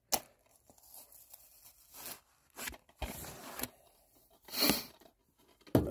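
A plastic DVD case and its wrapping handled and worked open by hand: a sharp click at the start, then scattered rustling and scraping, with the loudest rustle a little over four and a half seconds in.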